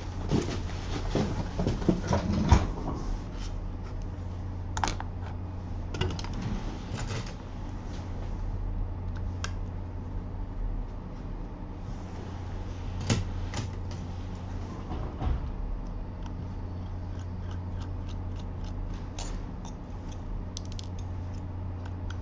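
A steady low hum with scattered small clicks and knocks, busiest in the first few seconds.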